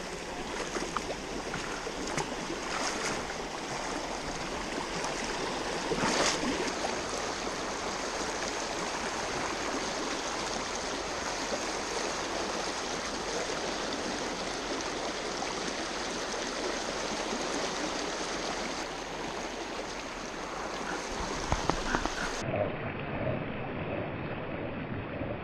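Steady rush of stream water flowing over rocks, with a brief splash or knock about six seconds in. Near the end the sound abruptly turns duller.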